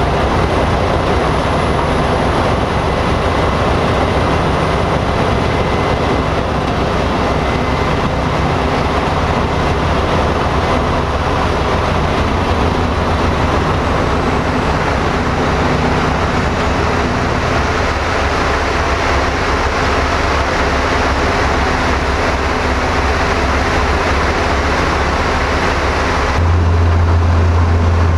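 Wüst HD-810 wood chipper, driven by a 520 PS Volvo TAD1242 diesel engine, running steadily: a dense mechanical noise over a low engine hum. Near the end the sound changes abruptly, the higher noise falling away and a louder low hum taking over.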